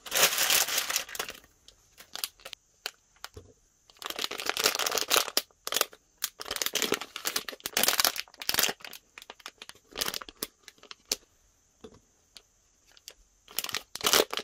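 Plastic and foil packaging of an iBloom squishy blind bag crinkling and tearing as it is opened by hand, in separate bursts of rustling with short pauses between.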